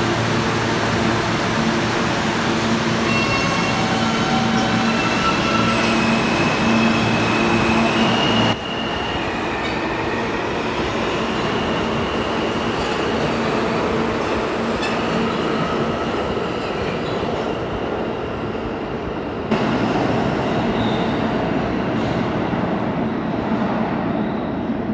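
R160 New York subway train pulling out of the station and running off into the tunnel: a steady electric hum and the rumble of the cars, with high wheel squeals through the first half. The sound drops off suddenly about eight and a half seconds in, and rises sharply again near twenty seconds.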